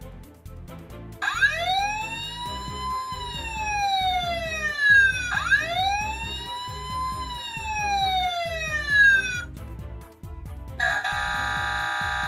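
Electronic wail siren of a Tonka toy fire truck: two slow cycles, each rising for about two seconds and falling for about two more, then it stops. Near the end a steady electronic tone starts.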